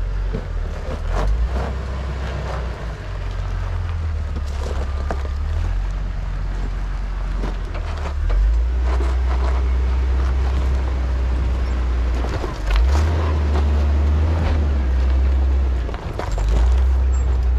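Off-road Jeep crawling over trail rocks under heavy wind rumble on the microphone, with scattered knocks through the climb.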